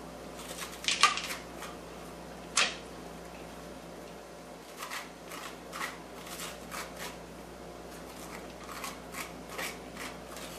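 Stringy seeds and pulp being scraped out of a halved spaghetti squash into a bowl: a run of short, uneven scrapes, with two sharper knocks about one and two and a half seconds in.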